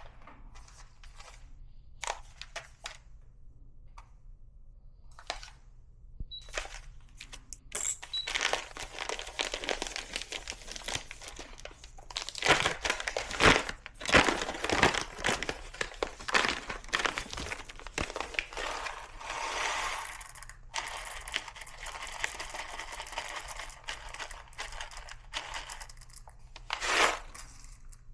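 A 1Zpresso K-Ultra hand coffee grinder grinding beans: a dense, gritty crunching that starts about a third of the way in, is loudest soon after, then evens out until it stops near the end. Scattered clicks and handling knocks come before it.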